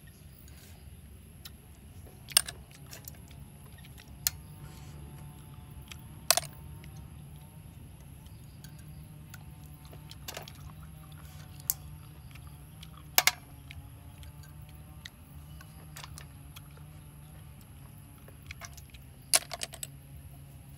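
Scattered sharp clinks of snail shells knocking against a metal wok as cooked snails are picked out of the pan, about eight in all, over a steady low hum.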